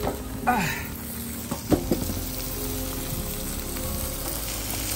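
Food sizzling steadily over heat, with a few brief knocks or handling noises in the first two seconds.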